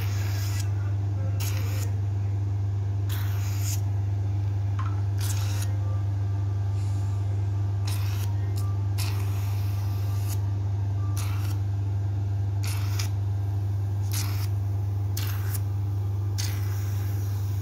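HydraFacial machine's vacuum pump running with a steady low hum. The suction handpiece tip gliding over the skin of the nose and face gives short, irregular hisses of drawn-in air every second or so.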